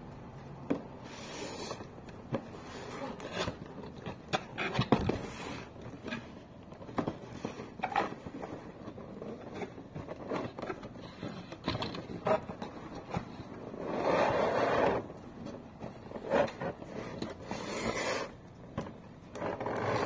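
A toy box and its packaging being handled and opened: a run of scrapes, taps and clicks with rustling, in longer rustling stretches about 14 and 18 seconds in.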